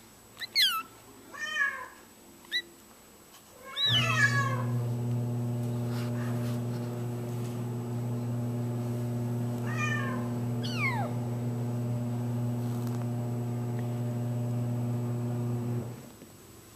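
Four-week-old F1 Bengal kitten giving high-pitched meows that fall in pitch, several in a cluster in the first few seconds and two more later on. Under the later meows a steady low hum starts suddenly about four seconds in, is the loudest sound, and cuts off near the end.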